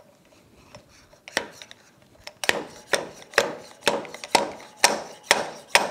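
Fork seal installation tool, a sleeve slid along the fork tube, knocking a new oil seal down into a 2007 Honda Gold Wing GL1800 fork's outer tube. It gives a run of about nine sharp knocks, roughly two a second, starting about a second and a half in.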